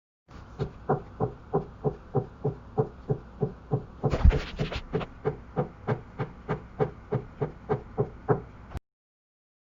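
Steady knocking, about three knocks a second, run through a voice changer app. A louder thump with a quick flurry of knocks comes about four seconds in, and the knocking cuts off suddenly near the end.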